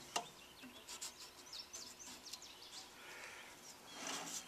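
Low background noise with faint bird chirps, a short click just after the start, and a soft rubbing sound near the end as a hand works at the band saw.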